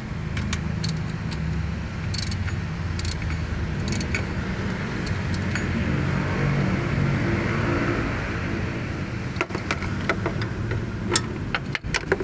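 Hand tools clicking and clinking on metal as the new water pump's bolts are tightened, a few scattered clicks at first and a quick run of them near the end, over a steady low rumble.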